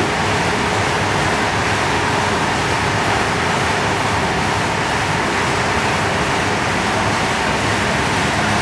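Charcoal briquette extruding machine and its conveyor belt running: a steady mechanical drone with a faint hum.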